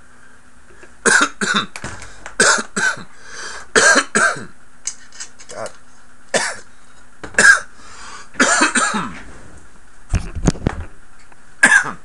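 A man coughing from bong smoke: about ten short, harsh coughs in bunches, with a low thump about ten seconds in.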